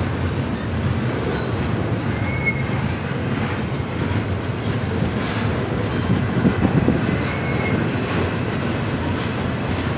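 Double-stack container train on well cars rolling past close by: a steady low rumble of steel wheels on rail, with a couple of brief faint wheel squeals and a louder clatter about six and a half seconds in.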